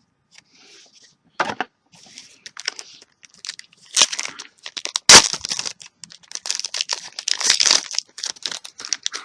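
Trading card booster pack wrapper being torn open and crinkled by hand: irregular crackles, with the loudest rips about four and five seconds in, then dense crinkling.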